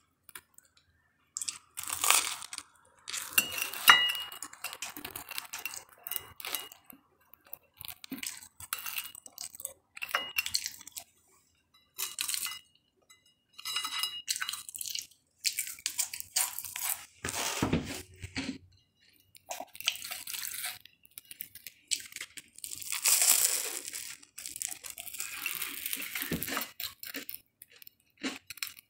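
Close handling of a bread sandwich on a ceramic plate: the bread crackles and tears in short, irregular bits, with now and then a light clink against the plate.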